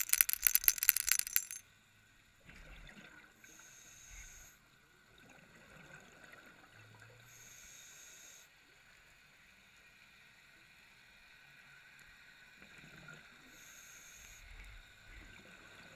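A scuba diver's exhaled bubbles from the regulator crackle and gurgle, stopping about a second and a half in. After that it is quieter, with three faint hisses of about a second each.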